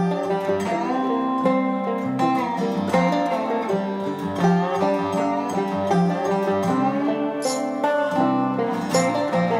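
Background instrumental music with changing pitched notes.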